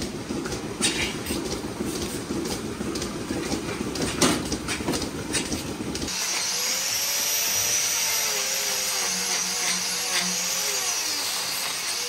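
Milking-parlour machinery running with a dense mechanical rumble and frequent clicks and clanks of milking clusters and fittings as units are handled. About halfway through it switches abruptly to a smoother, steadier sound with rising-and-falling tones.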